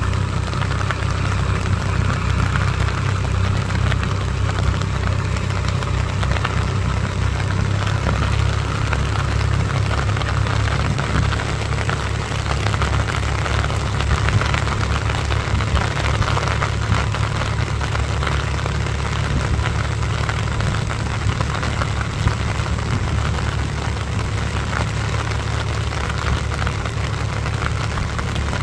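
Swaraj tractor's diesel engine running steadily as it drives a rotary tiller through a flooded, muddy rice paddy, a continuous low drone.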